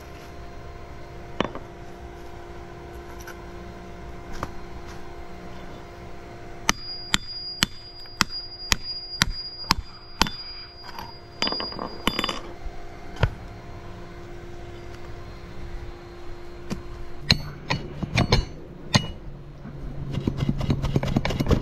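Hammer striking a hand chisel, about two ringing blows a second for roughly six seconds. Near the end, a flat shovel scraping and knocking against the paver bed, with a steady low hum in the background.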